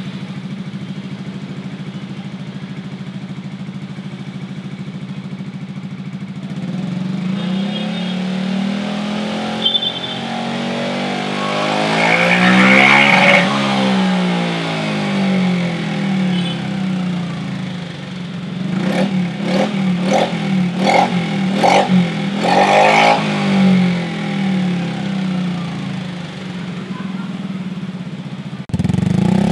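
Yamaha XMAX 250's single-cylinder four-stroke engine breathing through a Prospeed full-system aftermarket exhaust: it idles steadily, is revved once in a long rise and fall, then given a quick run of throttle blips before settling back to idle.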